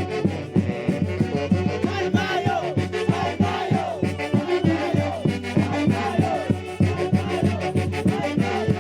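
A band playing Huancayo santiago music: a steady, driving beat under sliding, wavering melodic notes.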